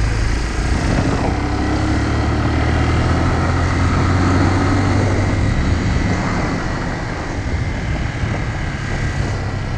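Motorcycle engine running at a steady cruise, heard from on board with wind and road noise over it; its pitch rises a little in the first few seconds and the level eases slightly about six seconds in.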